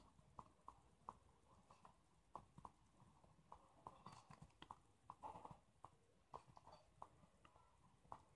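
Faint pen strokes on paper: irregular light taps and short scratches as a pen writes a line of words.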